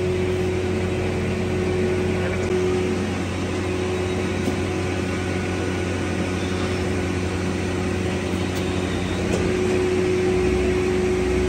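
Steady droning hum of a cupola furnace's air blower, one constant tone over a low rumble.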